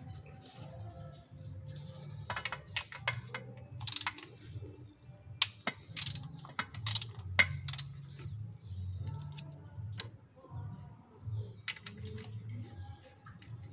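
Socket ratchet clicking in short irregular runs, with metal tools clinking, as the bolts on a Nissan Frontier D22's top-mount turbo intercooler are worked. A low hum runs underneath.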